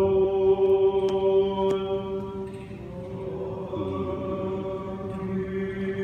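Greek Orthodox Byzantine chant in a reverberant church: a long held sung note over a steady lower drone (the ison), the melody moving briefly around the middle before settling on a held note again.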